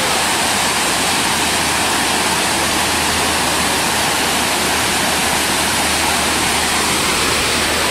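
Steady, loud rush of a waterfall, water cascading over rock ledges.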